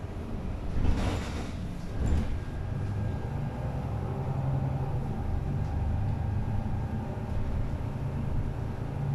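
City bus engine running and cabin rumble as the bus drives along, heard from inside the passenger cabin, with two louder thumps about one and two seconds in.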